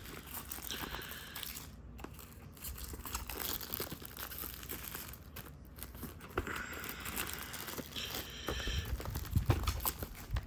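VHS tape packaging being handled and pried at: crinkling and tearing of the wrapping with scattered small clicks, busier near the end with a few low knocks.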